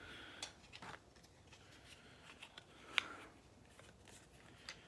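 Faint handling of action figure packaging: scattered small clicks and light rustles, with one sharper click about three seconds in.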